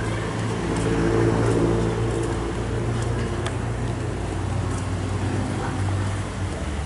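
An engine running steadily with a low hum, its note changing near the end.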